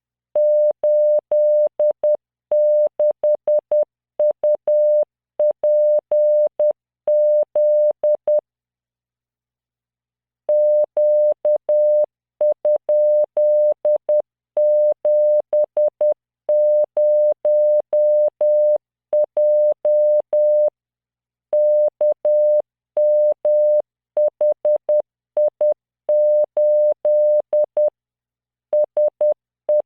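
Computer-generated Morse code at 10 words per minute: a pure 600 Hz tone keyed into dots and dashes, sending random five-character groups. It pauses for about two seconds around a third of the way in, then carries on.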